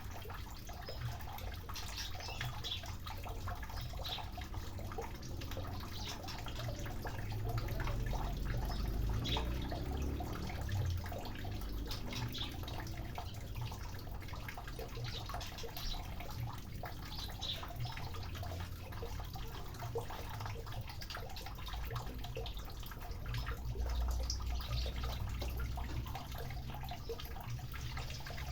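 Water splashing and dripping in quick, irregular flicks as a white-rumped shama bathes, over a low steady rumble.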